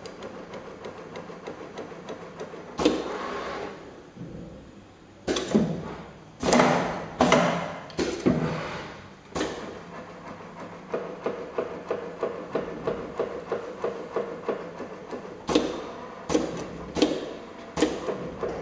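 ZY-510B automatic steel rule bending machine working on a steel blade: sharp metallic clacks from its bending and cutting head. In the second half a run of lighter, regular ticks comes about two a second.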